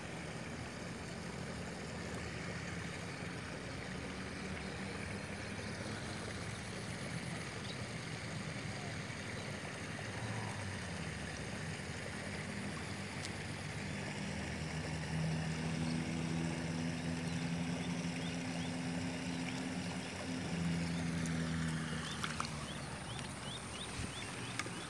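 A distant small engine running, its low hum swelling in the middle and easing off again, over steady outdoor background noise.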